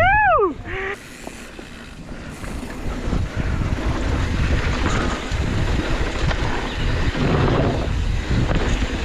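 Wind rushing over the microphone and mountain bike tyres rolling over dirt trail during a downhill run, quieter for about two seconds and then steady. It opens with a brief rising-then-falling whoop.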